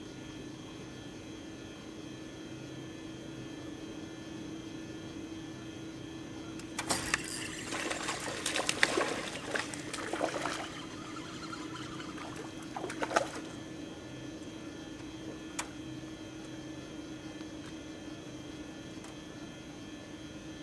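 Water splashing beside the boat, with sharp clicks, for about four seconds starting about seven seconds in, and again briefly near thirteen seconds, over a steady low hum.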